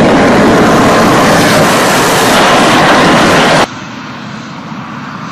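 Heavy military engineering vehicle driving close past, its engine running very loud. A little past halfway the sound drops suddenly to a much quieter, distant engine noise.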